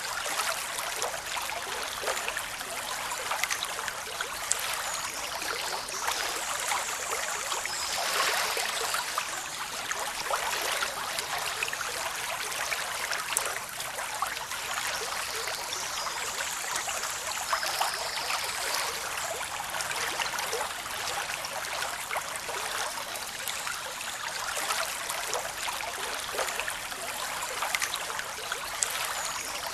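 Waterfall rushing down rocks: a steady, unbroken rush of water with little deep rumble.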